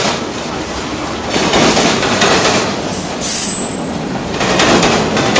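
Freight train of tank cars and boxcars rolling past close by, wheels clacking in repeated surges as each set of wheels goes by. About three seconds in comes a brief, high wheel squeal.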